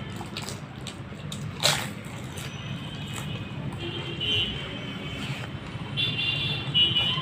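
Steady low hum of street traffic with short, high vehicle horn toots near the middle and again near the end, and a sharp crunch of a crisp panipuri shell about two seconds in.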